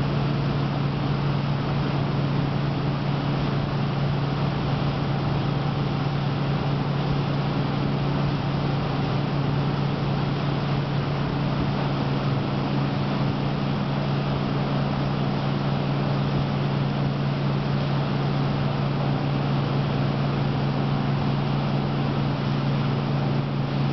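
A 50 ft Azimut motor yacht running steadily under way: a constant low engine hum over the rush of its churning propeller wash.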